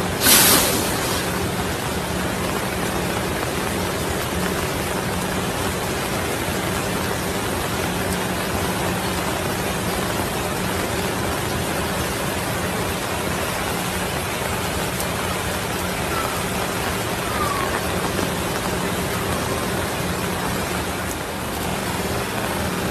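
Steady hiss of rain and flowing floodwater over the low, steady hum of a diesel-electric locomotive idling while held in the flood. A brief loud rush of noise comes just after the start.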